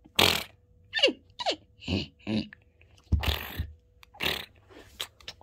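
A child's voice making non-word sound effects for a toy horse bucking off its rider: several breathy huffs and, about a second in, two short falling squeals.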